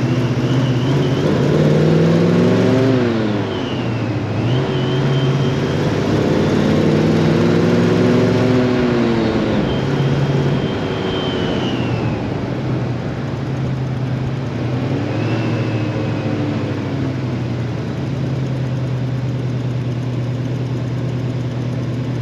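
1968 Dodge Charger engine pulling the car through slow driving. The revs climb about a second in and drop near three seconds in. They climb again and fall off around ten seconds, rise once more about fifteen seconds in, then settle into a steady low run.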